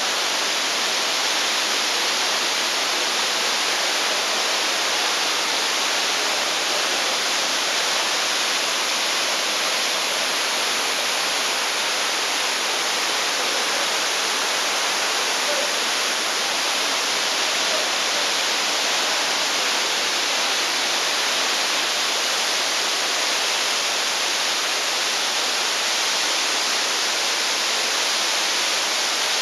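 Waterfall, a steady, unbroken rush of falling water. The falls are running with little water.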